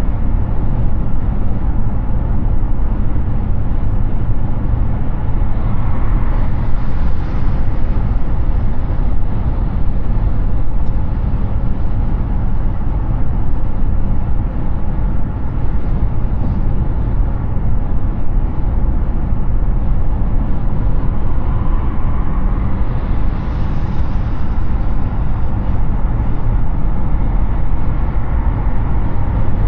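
Steady road and tyre rumble with wind noise from a Hyundai Ioniq 6 electric car at highway speed, mostly deep rumble with no engine note. It swells briefly twice, about six and twenty-three seconds in.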